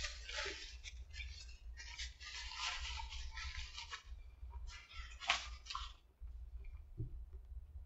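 A person chewing a bite of a crispy fried-chicken sandwich close to the microphone, with crackly mouth noises for the first few seconds and a sharp click about five seconds in; the chewing dies down about six seconds in.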